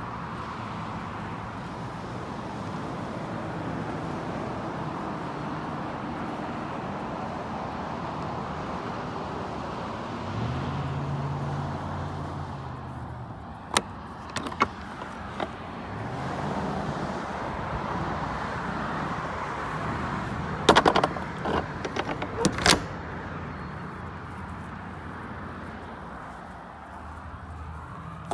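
Sharp clicks and clacks of a rubber strap latch and metal hold-back bar on an aluminium horse trailer being handled: a couple about 14 seconds in and a louder cluster around 21 to 23 seconds in. An engine hums underneath, swelling twice.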